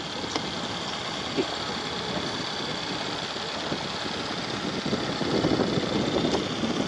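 Small boat outboard motor running steadily, with a slight rise in level about five seconds in.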